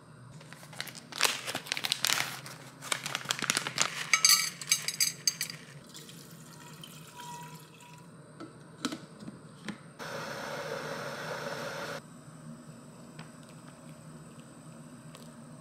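Glass electric tea kettle with a stainless infuser basket: metal clinking and rattling with a light ringing for the first few seconds, a few single clicks after, and about ten seconds in two seconds of steady water noise that starts and stops abruptly.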